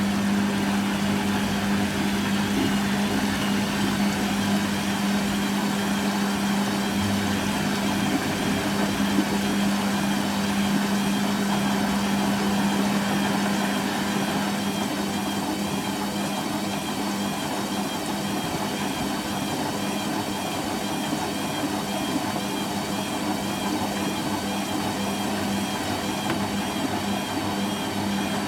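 Hoover Quattro System Power Jet Easylogic AE130 washing machine running a rinse cycle: a steady motor or pump hum with water noise, easing a little about halfway through.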